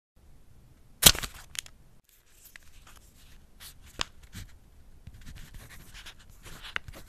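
Pen nib scratching across paper, with a few sharp clicks: the loudest about a second in, another near four seconds. It stops abruptly at the end.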